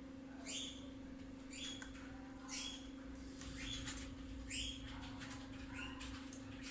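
Cockatiel chirping in short, high, rising calls about once a second, over a steady low hum.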